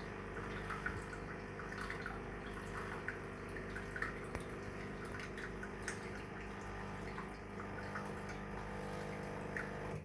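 Pod coffee machine running its rinse (filter) cycle: the pump hums steadily while water runs and drips into the mug, then it shuts off at the end.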